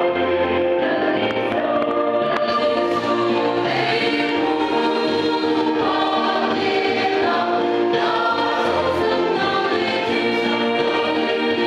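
Mixed choir of young men and women singing together, holding sustained chords that move steadily without a break.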